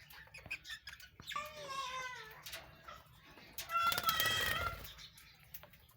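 Budgerigars in a colony calling: a few falling chirps, then a loud harsh squawk about four seconds in, over scattered small clicks.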